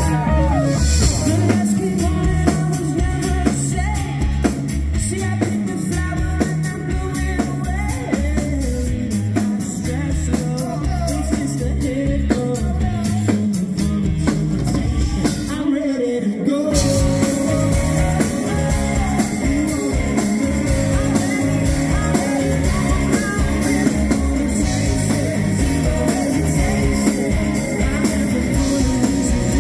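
Live rock band playing: male lead vocal over electric guitars, bass guitar and a drum kit. About halfway through the band briefly cuts out, then the full band comes back in.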